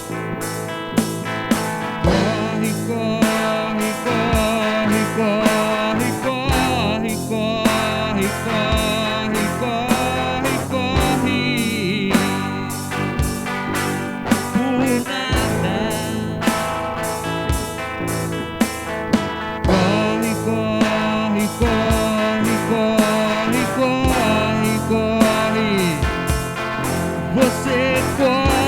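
Song with guitar and a steady drum beat, with some singing.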